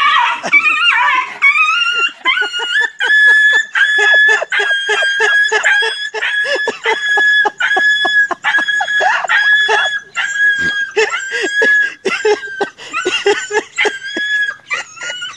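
A dog crying out over and over in high, steady-pitched whines, about two a second, after a few rising cries at the start.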